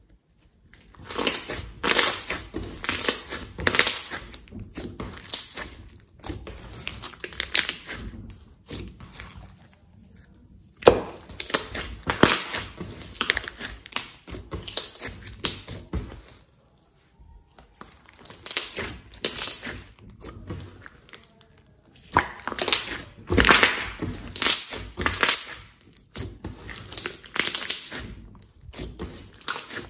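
Hands squeezing and kneading a large, soft glossy slime, which gives off quick runs of wet crackles and pops. The crackling comes in spells of a few seconds with short pauses between them.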